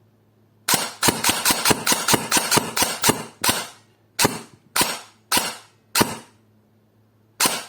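E&L electric airsoft AK firing: a quick string of sharp shots, about six a second, then single shots about every half second or so, and another quick string near the end. The shots are fired into a chronograph to measure the new hop-up's muzzle energy while the gun is misfeeding from its magazine.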